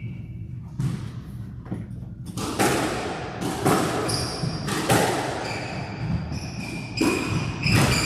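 Squash rally: a squash ball struck by rackets and smacking off the court walls in an irregular series of sharp hits, getting louder about two and a half seconds in, with short high squeaks among them.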